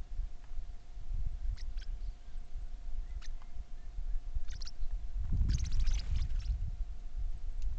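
Short, high-pitched chirps from birds: single notes every second or so, then a quick run of them about five and a half seconds in, over a low rumble.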